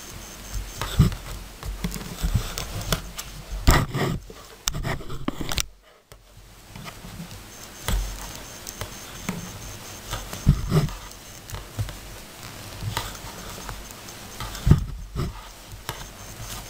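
Knitting needles clicking irregularly, with yarn and knitted fabric rustling, as a cable row is knitted by hand close to the microphone; the sound drops out briefly about six seconds in.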